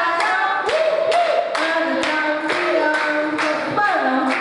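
A group of voices singing together, accompanied by rhythmic hand-clapping at about two claps a second.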